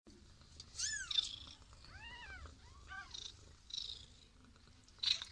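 Newborn kittens mewing: several thin, high, short mews that rise and fall, in the first three seconds. Short scratchy rustles of the kittens moving in the bedding come between them, with a sharper one near the end.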